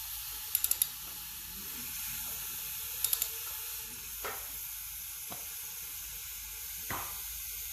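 Compressed air hissing steadily through a cylinder leak-down tester on a 5.7L Vortec V8; the cylinder reads in the green, so the air is escaping only a little. Two quick runs of three sharp clicks come early, and a few dull knocks follow later.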